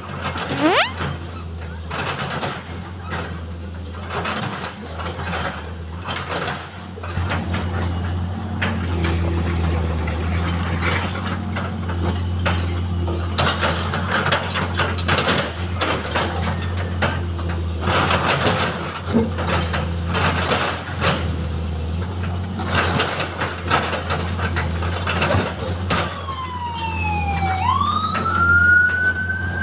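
Heavy road-construction machinery running with a steady low drone and repeated clattering knocks. Near the end a siren starts wailing, sweeping up in pitch and then falling.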